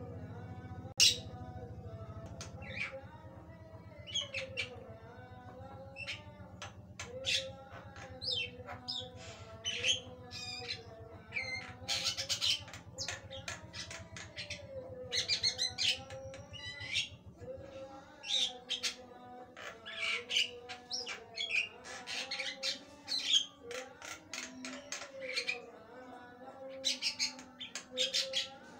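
Javan myna calling continuously in a long, varied run of sharp squawks, chattering notes and short whistles, the song that keepers call gacor. A low hum sits underneath and fades out a little past halfway.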